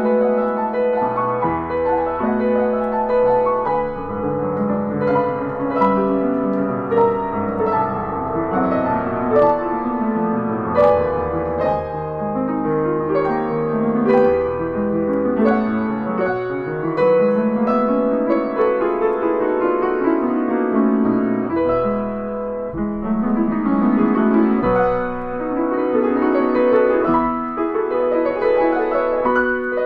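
Kawai upright piano played continuously in a flowing classical passage of many quick notes, with runs sweeping up and down the keyboard.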